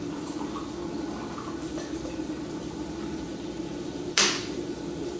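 Water pouring from a plastic water bottle into a glass measuring cup, with a short, loud crackle of the plastic bottle near the end.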